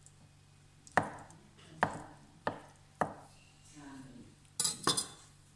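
A kitchen knife chopping on a cutting board: four single chops spaced about half a second to a second apart, then two sharper, brighter knocks close together near the end.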